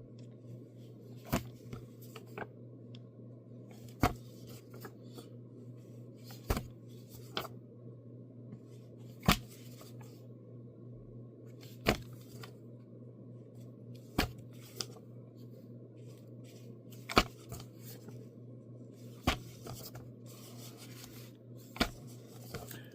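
Comic book pages being turned one after another, a short crisp paper flick every two to three seconds, over a steady low hum.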